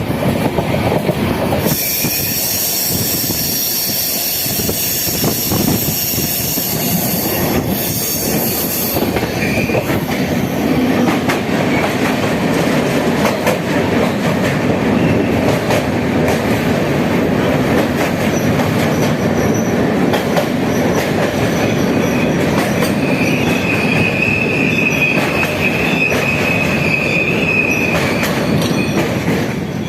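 A passenger train running along the rails with a loud, continuous rumble and rattle of wheels on track. A shrill high-pitched wheel squeal rises over it about two seconds in and lasts several seconds. A steadier squeal returns later, near the end.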